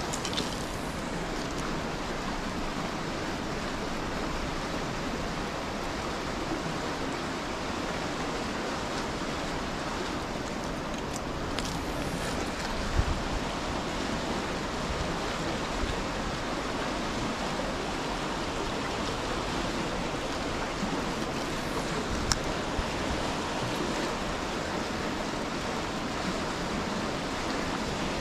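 Creek water rushing steadily, with a few faint clicks.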